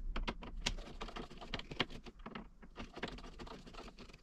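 A screwdriver working at the terminal screws and wires of a main electrical panel: a run of quick, irregular small clicks and ticks.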